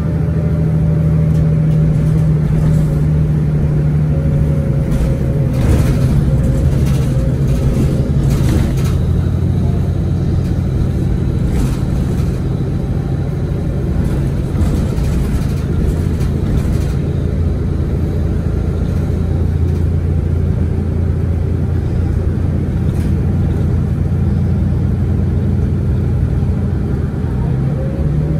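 The Cummins ISL9 diesel engine and ZF EcoLife automatic transmission of a 2011 Orion VII 3G transit bus, running under way. The engine note drops lower about a third of the way in and rises again near the end, with scattered rattles and knocks.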